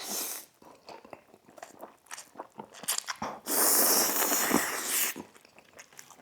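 Close-up eating sounds: wet chewing and smacking with small clicks, and a long, loud slurp of sauce-coated noodles lasting about a second and a half, starting about three and a half seconds in.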